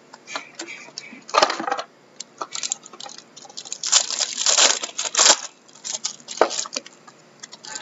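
Plastic wrapper crinkling and trading cards being shuffled and handled, in irregular crackly bursts, loudest about four to five and a half seconds in.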